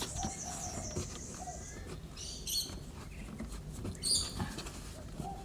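Small birds chirping: a wavering high trill that fades out about a second and a half in, then two short high chirps. Faint clicks and knocks from a car seatbelt retractor being worked by hand lie underneath.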